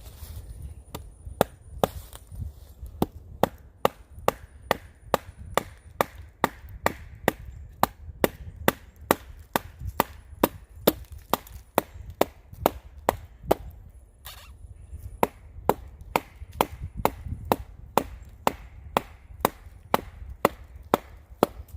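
A pocket knife blade being pounded down through a log to split it: a steady run of sharp wooden knocks, about two to three a second, with a short pause about two-thirds of the way through.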